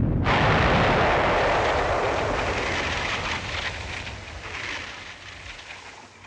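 Eruption sound effect for an erupting ice volcano: a low rumble, then a loud rushing hiss that comes in suddenly just after the start and slowly fades away.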